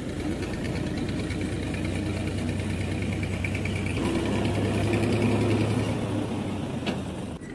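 Massey Ferguson 240 tractor's three-cylinder diesel engine running under load while the tractor is stuck in deep mud, trying to pull a trolley out; it works harder and louder from about four seconds in and eases off near the end. A single sharp knock just before the end.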